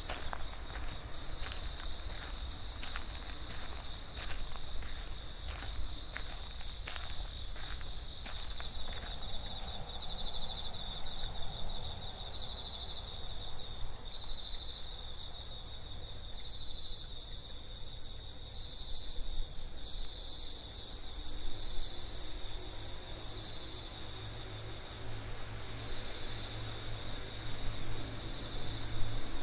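Steady night chorus of crickets, among them Japanese bell crickets (suzumushi), calling continuously at several high pitches. Faint soft taps come about twice a second during the first nine seconds or so.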